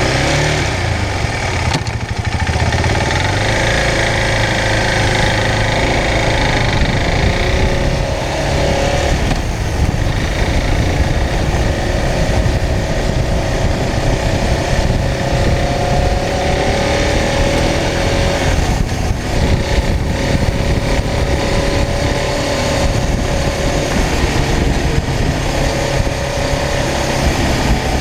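Motorcycle engine running steadily on the road, its note drifting slightly up and down, with wind rushing over the microphone.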